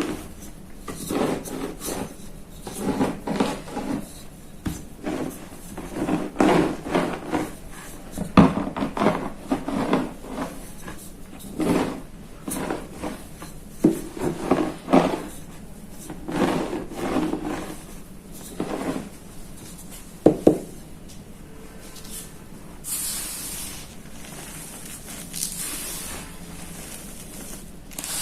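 Gym chalk blocks crushed under a rolling pin: a run of crunching, grinding strokes, one after another. About three-quarters of the way in the crunching stops and a softer, steady high hiss takes over.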